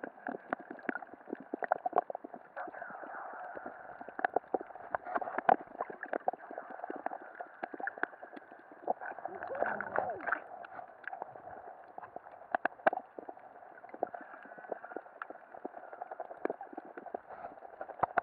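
Muffled underwater sound from a camera held below the surface: a steady dull wash of water with frequent sharp clicks and knocks, and a brief gurgle of bubbles about ten seconds in.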